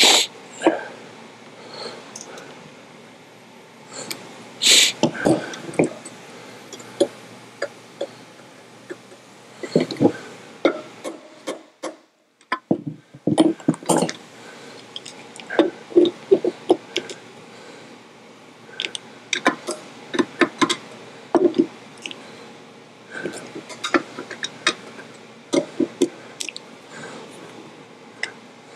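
Irregular metal clicks and knocks of hand tools working the magnets on a Model T flywheel: the magnet screws are turned with a ratcheting brace and the height gauge is swung around over the magnets. There is a short pause about twelve seconds in.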